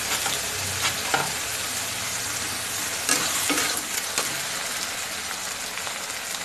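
Ground masala paste sizzling in hot oil with fried onions in a black iron kadai, while a metal spatula scrapes and stirs it in a few short strokes.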